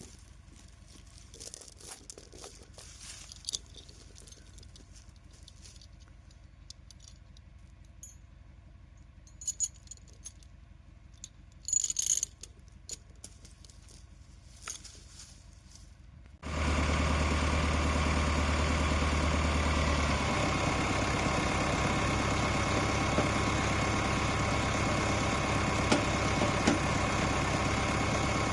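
Scattered light metallic clinks and rattles, then just past halfway a tractor's diesel engine comes in abruptly and runs steadily at idle.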